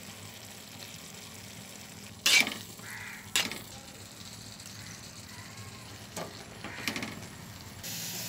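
Food sizzling in a pan while a spoon stirs it, knocking sharply against the pan twice about two and three seconds in, with a few lighter taps later.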